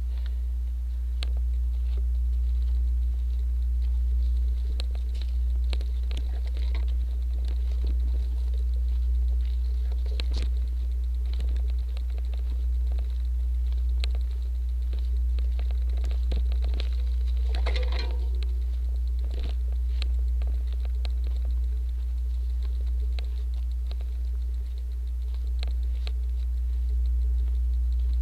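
Cyclocross bike ridden over a rough dirt and gravel trail, heard through a camera mounted under the saddle: a steady low rumble of riding vibration, with scattered clicks and rattles. There is one brief squeak about two-thirds of the way through.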